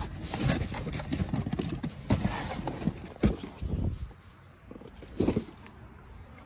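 A cardboard box being handled and rummaged through: irregular knocks, scrapes and rustling of cardboard, easing off in the last couple of seconds with a few more knocks.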